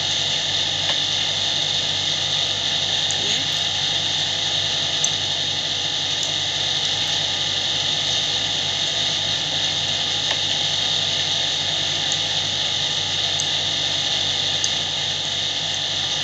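Constant loud background noise: a steady hiss with a low hum underneath, strongest in the upper-middle range. A few faint ticks come through as the knitting needles work.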